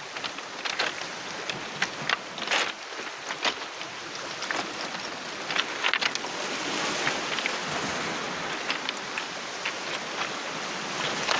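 Small waves washing onto a cobble and pebble beach, a steady hiss of surf, with irregular sharp clicks of beach stones knocking together underfoot.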